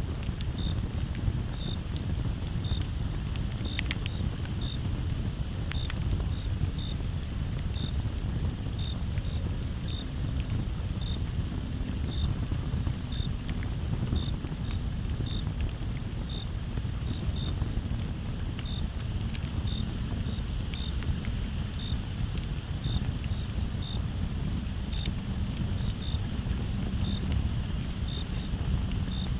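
Campfire burning with a steady low hiss and scattered sharp crackles and pops of burning wood, under a continuous high chorus of crickets, with one cricket chirping about once a second.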